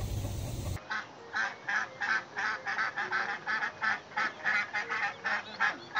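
Domestic duck quacking in a rapid, even series of short calls, about three a second. The first moment before it is a brief low rumble.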